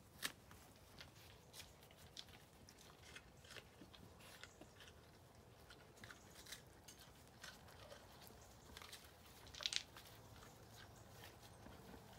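Alpacas chewing and crunching apples: faint, irregular crunches and clicks, with a louder burst of crunching near the end.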